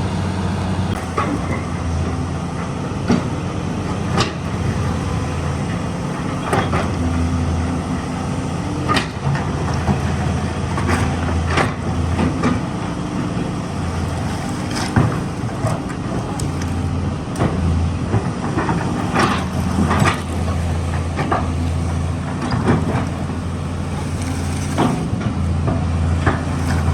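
Caterpillar excavator's diesel engine running steadily under load, the hum dipping and rising now and then, with scattered sharp cracks and knocks throughout.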